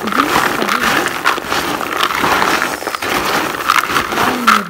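Kajiji (gowe) pieces coated in oil perfume being stirred and turned over by hand in a container: a continuous crunchy rustle of many small clicks as the hard pieces knock and rub against each other.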